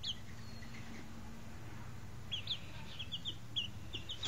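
Young chickens peeping: one short high cheep at the start, then a quick run of high peeps, several a second, through the second half.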